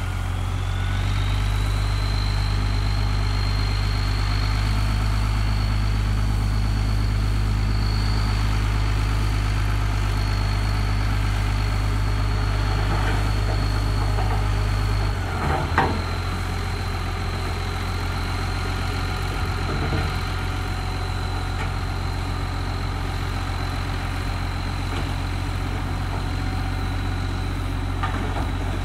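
Heavy diesel engine of a construction machine running steadily, with a high whine that rises in the first second and then holds. About halfway the engine note drops a little, with a brief clank, and there is a lighter knock a few seconds later.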